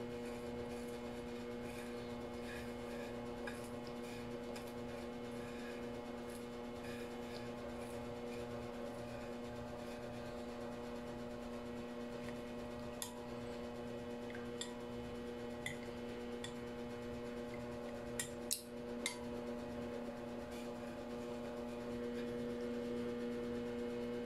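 A steady low hum throughout, with a few light clicks of metal kitchen tongs against plates in the second half, three of them close together about three quarters of the way through.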